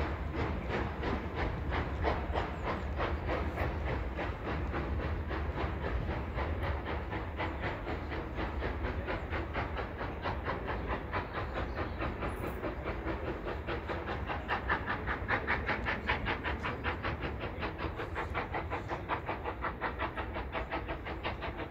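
Caledonian Railway 812 class 0-6-0 steam locomotive No. 828 pulling away, its exhaust beating in a quick, even rhythm.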